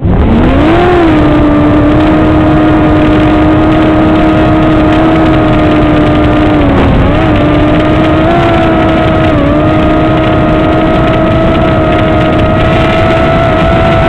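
Parrot MiniDrone's small electric motors and propellers whining. They spin up with a rising pitch as it lifts off, then hold a steady pitch in flight, with brief dips twice.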